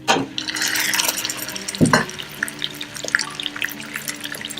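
Raw chicken pieces going into hot oil and browned onions in a pot: a loud burst of sizzling as they go in, a dull thump nearly two seconds in, then steady crackling and spitting as the chicken fries.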